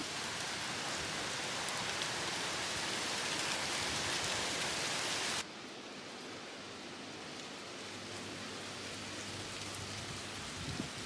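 Steady rain hiss that drops suddenly to a quieter, duller patter about five seconds in.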